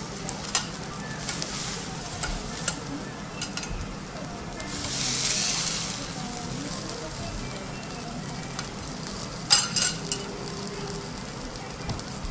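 Okonomiyaki and a fried egg sizzling on a hot teppanyaki griddle, a steady hiss that swells for about a second near the middle. Metal spatulas click and scrape on the steel plate now and then, with a cluster of sharper clicks about three-quarters of the way in.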